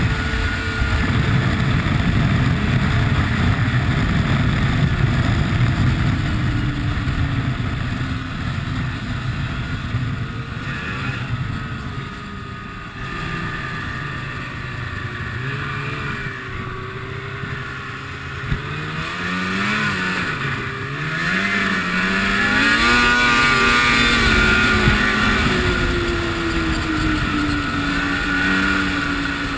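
Ski-Doo MXZ snowmobile engine running under way on a trail, steady for the first half, then revving up and down repeatedly in the second half. A single sharp click sounds about eighteen seconds in.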